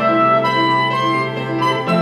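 Soprano saxophone and grand piano playing together: held saxophone notes over a repeating piano figure, with the harmony shifting near the end.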